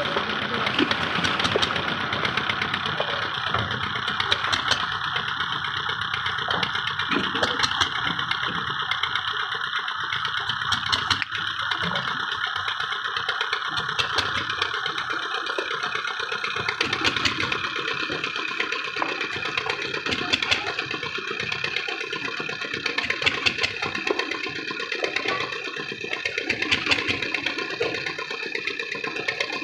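A machine engine running steadily, with a dense rattling texture.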